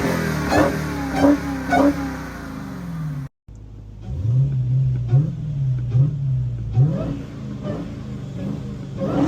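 Hellcat's supercharged 6.2-litre V8, on stock exhaust with a Corsa cold air intake, running with short, quick throttle blips. There is a brief cut about a third of the way in, then four blips in quick succession.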